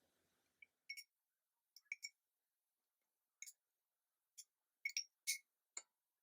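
Faint, irregular light clicks and taps, about nine of them with near silence between, the loudest a cluster about five seconds in: a utensil tapping against the stand mixer's bowl as the softened butter goes in.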